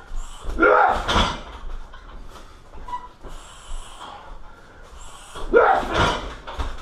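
A fighter's grunting exhale, each ending in a heavy thud as a strike lands on a car tyre; this happens twice, about five seconds apart, with breathing in between.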